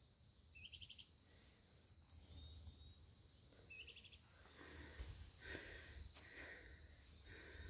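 Faint open-air ambience: a small bird gives a short, quick series of high notes twice, about three seconds apart, over a thin steady high hum and a low rumble.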